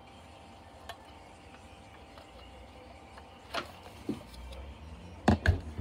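Knocks and clunks from handling an old NuTone bathroom exhaust fan's metal housing and motor assembly: two light knocks in the middle and two louder sharp ones near the end.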